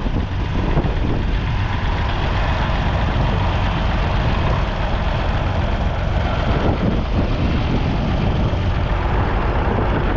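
A 1985 Massey Ferguson 250 tractor's 2.5-litre three-cylinder diesel engine running steadily.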